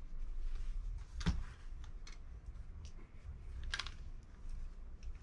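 Small clicks and rustles of a GoPro accessory being handled and fitted, with a sharper click about a second in and another near four seconds.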